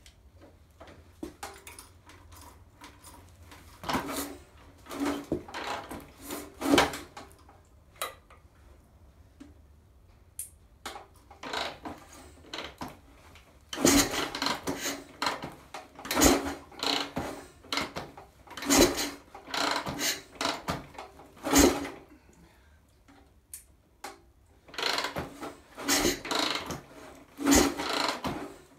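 Harley-Davidson Pan-Shovel V-twin being kick-started. The kickstarter is kicked repeatedly, each kick turning the engine over with a rasping, clattering stroke, and the engine does not fire. The kicks come in groups: two about four to seven seconds in, about five in the middle, and several more near the end.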